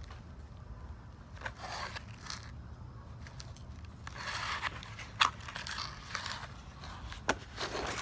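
Eating sounds as a tiramisu is being eaten: chewing and scraping, with two sharp clicks about five and seven seconds in.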